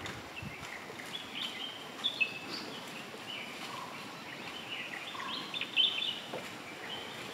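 Several forest birds chirping and calling at once: many short, high notes overlapping, some stepping down in pitch, over a faint steady background hiss.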